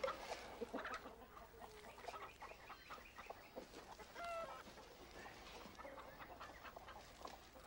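Chickens clucking: many short clucks, louder in the first second, with a brief higher call about four seconds in.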